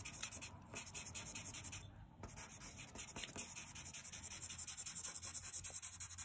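Green colored pencil scratching on paper in rapid short back-and-forth strokes, hatching in grass, with a brief pause about two seconds in.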